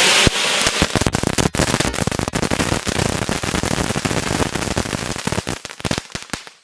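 INC Tora firework crackling: a sharp crack, then a dense run of rapid pops that thins out and stops near the end.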